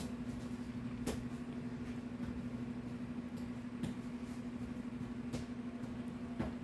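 Steady low hum of background room noise, with a few faint clicks and rustles as kittens paw and mouth at a hand on a fabric-covered couch.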